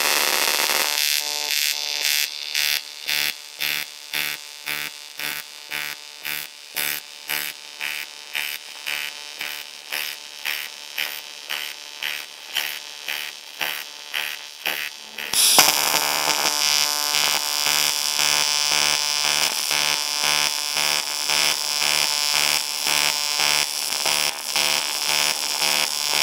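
Pulsed TIG welding arc buzzing, swelling and dropping in level about twice a second as the machine's pulse setting cycles the welding current. About fifteen seconds in it becomes louder and hissier, still pulsing.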